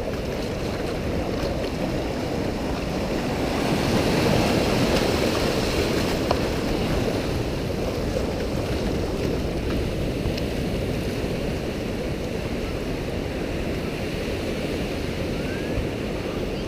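Ocean surf breaking and washing up the shore, with wind on the microphone; the surf swells a little louder about four seconds in.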